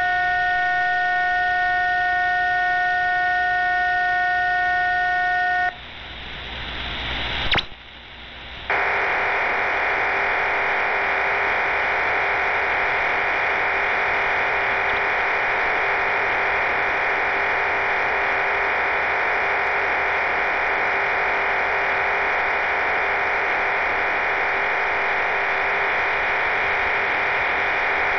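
HM01 Cuban numbers station received on shortwave, switching from voice to digital data. A chord of steady electronic tones holds for about six seconds. The signal then drops away briefly and a fast rising chirp sounds. After that a steady, dense hissing buzz of RDFT data runs without a break.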